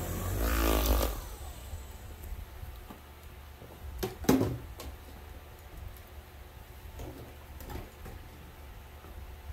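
Electric orbital polisher with a foam buffing pad running, then switched off about a second in and winding down. A sharp knock follows a little after four seconds, then a few light scuffs and steps.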